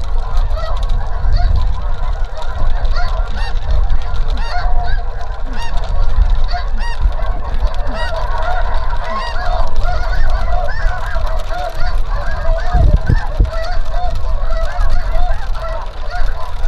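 A large flock of snow geese calling overhead: a dense, continuous chorus of overlapping short, high honks.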